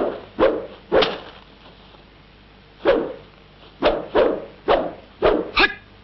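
Film sound effects of a martial-arts staff being swung and struck: a series of short, sharp swishes and hits, about nine in all, irregularly spaced, with a pause of nearly two seconds between about one and three seconds in.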